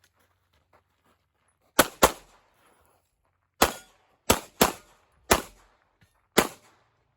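Glock 17 Gen 5 9mm pistol firing seven shots in a timed string: a quick pair about two seconds in, then five single shots spaced roughly half a second to a second apart.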